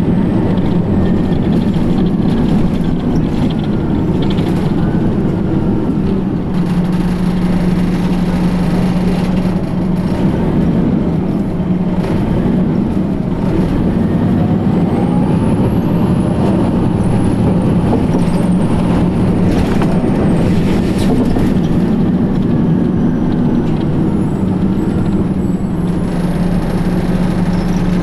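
Detroit Diesel Series 50 EGR diesel engine of a 2004 New Flyer D60HF articulated bus running with a steady drone, under a high, thin belt squeal that glides up about halfway through and holds for a few seconds.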